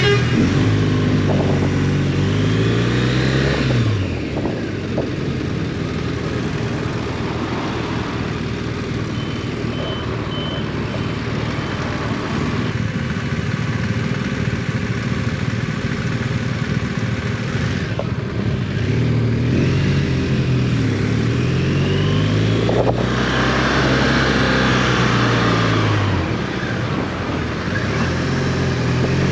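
Motorcycle engine pulling away and accelerating through the gears, its pitch rising then dropping at each shift, with steady wind and road noise while cruising. Near the end it accelerates through the gears again.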